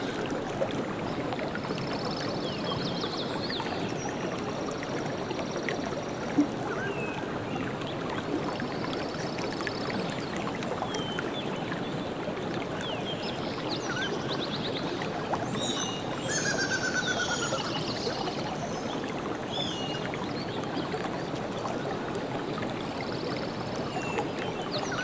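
Stream water flowing steadily, with scattered short high chirps above it and a brief trill about sixteen seconds in. There is a single sharp click about six seconds in.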